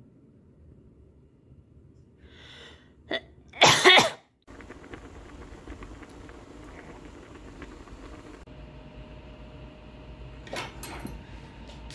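A single loud sneeze about four seconds in. It is followed by the steady bubbling of a pot of kimchi udon boiling on a glass stovetop, with a couple of sharp knocks near the end.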